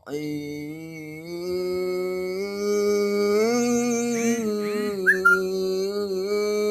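A child's voice chanting Qur'anic recitation in the melodic tilawah style, taking a breath at the start and then holding long, slowly rising and falling notes. A few short high chirps sound around the middle.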